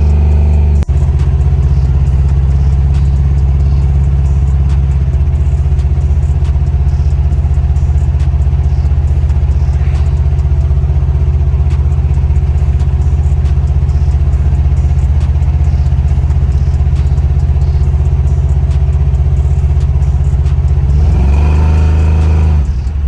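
Box Chevy's engine and exhaust running at a steady speed, a loud, even low drone, with a change in the engine note near the end.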